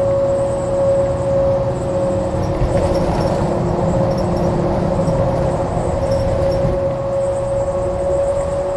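New Flyer XDE60 Xcelsior articulated hybrid bus running, its Cummins ISL9 diesel engine and Allison H50 EP hybrid drive making a low rumble under a steady whine. The low rumble eases off near the end.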